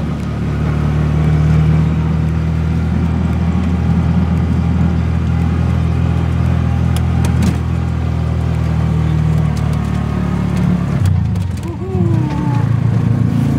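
Engine of a Bajaj Maxima Z three-wheeler running steadily under way with a low drone. About eleven seconds in the engine note drops and briefly falters, then picks up again.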